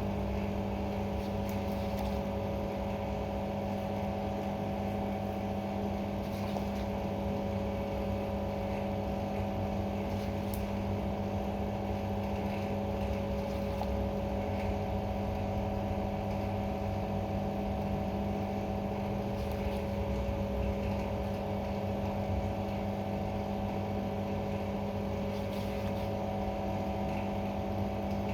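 A machine running steadily with an even hum made of several constant tones over a low rumble, like an electric motor or blower.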